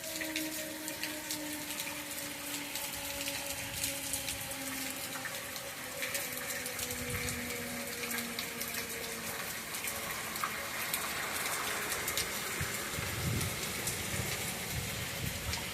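Steady rain with scattered drop hits. Under it, an outdoor tornado warning siren slowly falls in pitch as it winds down, fading out about halfway through.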